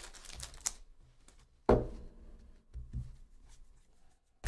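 A foil card-pack wrapper crinkling as it is torn open. A few dull thumps and taps follow as the baseball cards are handled, the loudest about two seconds in and near the end.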